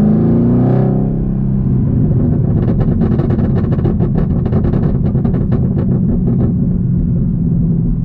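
Camaro ZL1's supercharged V8, heard from inside the cabin through an H-pipe catback exhaust. The revs climb through the first second, then it lifts off and the exhaust pops and crackles on deceleration for about four seconds before settling into a steady low rumble.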